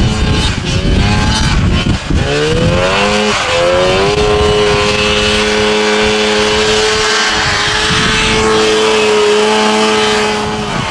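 Snowmobile engine revving hard in deep snow. Its pitch climbs about two seconds in, holds high and steady at full throttle, then drops away near the end.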